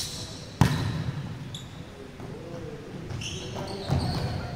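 A volleyball being struck twice with sharp slaps that echo in a large gym, the loudest about half a second in and another near the end. Short sneaker squeaks on the court floor come between the hits.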